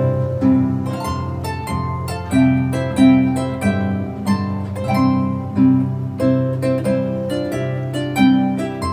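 Background music played on a harp: a flowing run of plucked notes, each ringing briefly and fading.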